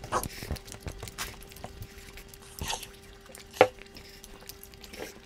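Eating sounds at a table: food being chewed and worked by hand on steel plates, with scattered small clicks and knocks, the loudest a little past halfway. A faint steady hum runs underneath.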